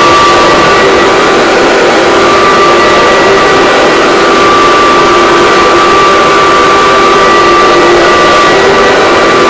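Vacuum cleaner motor running steadily at full speed just after being switched on, a loud rushing hiss with a steady whine.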